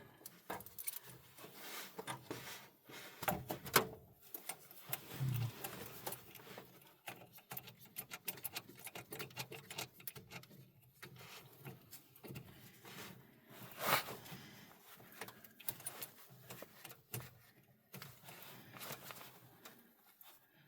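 Faint, scattered clicks, taps and rattles of metal battery cable ground clamps and cables being handled and fitted, with sharper clicks about 4 seconds and 14 seconds in.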